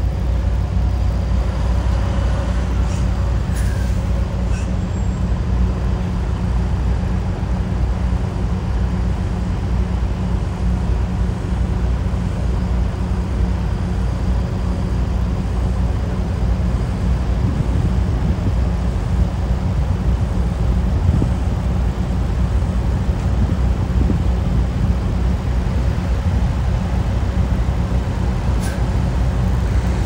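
Heavy truck's diesel engine idling: a steady, even low rumble.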